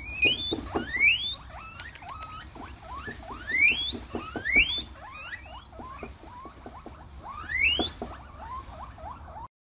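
Guinea pigs wheeking: about four loud, long squeals that each sweep sharply upward in pitch, with many shorter chirping squeaks between them. The sound cuts off suddenly near the end.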